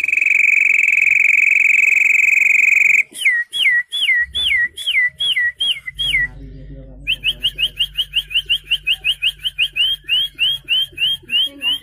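A man imitating birdsong by whistling with his mouth alone: one long steady whistle, then a run of quick swooping notes at about three a second, a short break, and then a faster run of short rising chirps.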